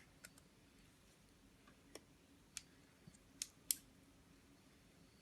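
A few light, sharp metallic clicks spaced out over a near-silent background, from the steel laminations of a small wall-wart transformer being worked and pried apart by hand.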